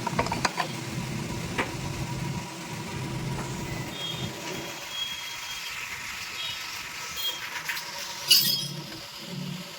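Metal tools and engine parts clinking while being handled, with one loud metallic clatter about eight seconds in.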